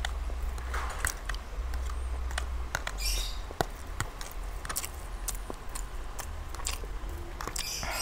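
Close-miked eating of spicy instant ramen noodles: wet chewing and mouth clicks, a couple of short slurps, and light clicks of a metal fork against a plastic food container.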